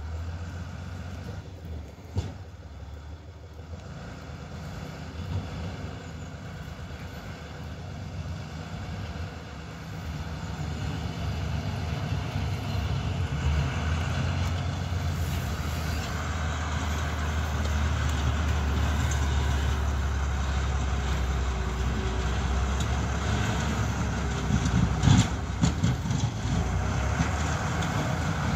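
Tractor-mounted snowplow approaching: its engine runs with a low rumble that grows steadily louder as it nears. A few sharp knocks come near the end.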